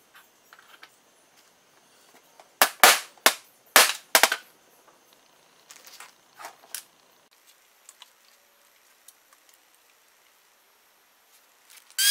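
Sharp clicks and clacks of small metal chainsaw carburettor and intake parts being handled and set down on a steel workbench: a quick run of about five loud ones around three seconds in, softer ones a few seconds later. At the very end an angle grinder switches on with a rising whine.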